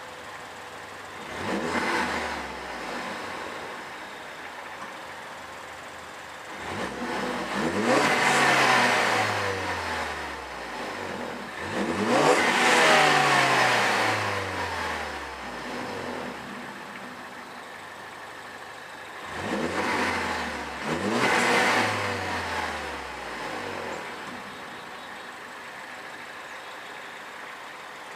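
2013 Ford Focus ST's turbocharged 2.0-litre EcoBoost four-cylinder idling and being revved five times, about two seconds in, twice between seven and fourteen seconds, and twice close together around twenty seconds. Each rev climbs quickly and then winds back down to idle in a falling tone.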